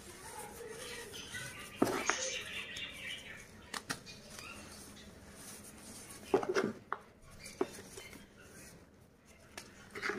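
Gym chalk bars crushed and crumbled by hand into loose powder: a series of sharp crunches, loudest about two seconds in and again around six and a half seconds, with a soft powdery rustle between them.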